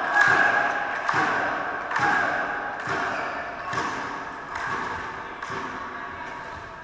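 Sharp thuds echoing around a large sports hall, about one a second, growing fainter over a steady background of hall noise.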